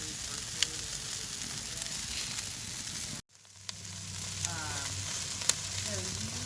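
Chicken wings sizzling on a grill grate over campfire coals: a steady hiss with a few sharp pops. The sound cuts out for a split second about three seconds in.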